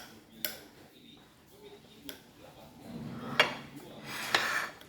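Cutlery clinking against plates and dishes at a meal: a few separate sharp clinks, the loudest about three and a half and four and a half seconds in.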